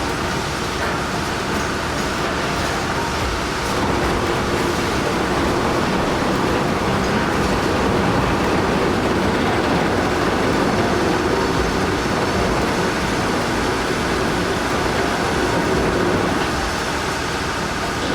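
Heavy machinery running: a loud, steady mechanical noise from diesel equipment that holds throughout and swells slightly about four seconds in.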